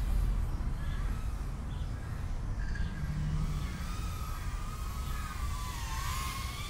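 Brushless motors of a BetaFPV Meteor75 75 mm whoop drone whining in flight, the pitch wavering up and down with throttle and growing clearer about halfway through. The whine is clean, with no odd noises, which the pilot takes to mean the propellers are on fine.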